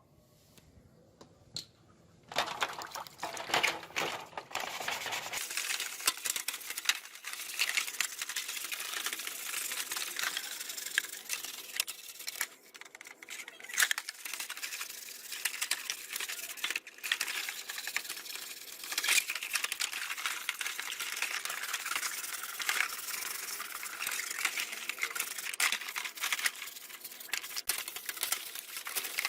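Hand tools scraping and clicking against the metal parts of an old rusty table fan, a dense, continuous rasping with many sharp ticks that starts about two seconds in.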